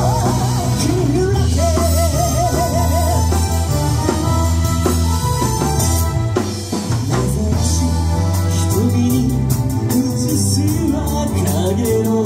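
Live band played through PA speakers: a singer over electric guitar, keyboard, bass and drum kit. About two seconds in the singer holds a note with vibrato.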